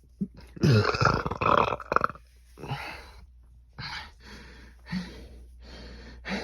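A man's long, deliberate burp, about a second and a half, starting low and gliding downward. It is followed by a run of shorter, softer noisy sounds about once a second.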